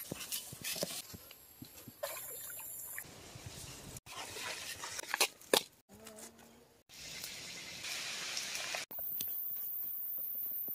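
A string of short, abruptly cut forest clips: scattered knocks and rustles of hands working wood and food, over a trickling stream and a high insect hiss. The loudest knock comes a little past halfway.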